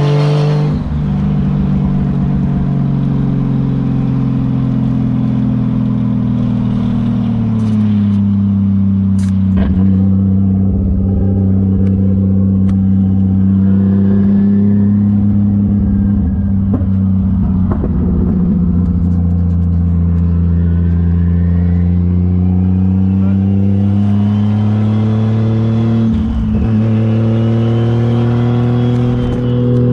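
Toyota 1JZ turbocharged inline-six with an open wastegate dump, heard from the driver's seat while cruising: a steady engine note that drops in pitch about seven seconds in and climbs again later. Near the end a high turbo whistle rises and falls, with a short break in the engine note about three seconds before the end.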